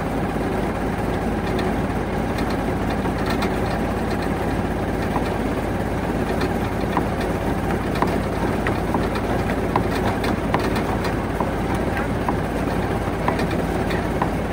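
Mitsubishi Canter truck's engine idling steadily, with light ticks now and then.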